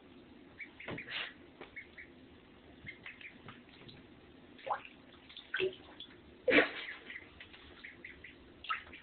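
Pekin ducklings swimming in a bathtub: scattered soft peeps and small splashes of water, the loudest sound about six and a half seconds in.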